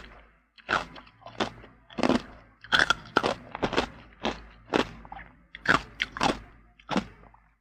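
Ice being crunched between the teeth: a run of sharp, separate crunches, about two to three a second.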